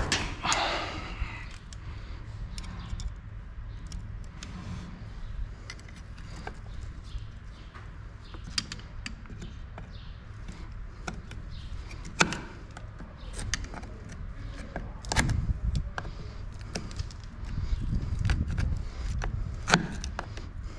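Scattered metallic clicks and knocks of steel parts being handled and fitted as a saw-tooth ring goes into a loader wagon's pickup slip clutch, over a low steady hum. The loudest knocks come about 12, 15 and 20 seconds in.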